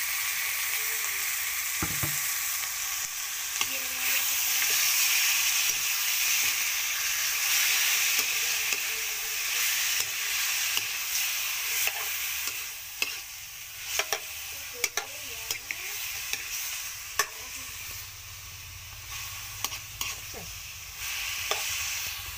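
Raw chicken pieces and garlic sizzling in hot oil in a steel wok. From about halfway through, a metal spatula turning the chicken knocks and scrapes against the pan in a run of sharp clacks.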